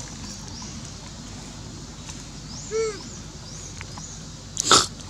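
Outdoor ambience with one short rising-and-falling animal call about halfway through and faint high bird chirps around it. A brief, loud rustling noise comes near the end.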